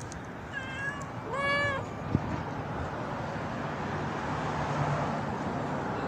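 A cat meowing twice in quick succession: a short, higher meow and then a longer one, both within the first two seconds. A single sharp click follows, then only steady background noise.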